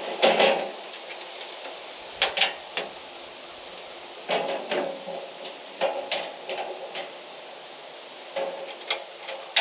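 Irregular metal clanks, clicks and knocks from hands-on work on a sawmill as a new blade is fitted and tensioned, with short rattles between the hits.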